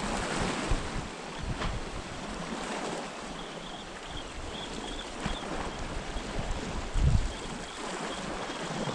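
Wind and small sea waves washing against rocks, with wind rumbling on the microphone and a low thump about seven seconds in.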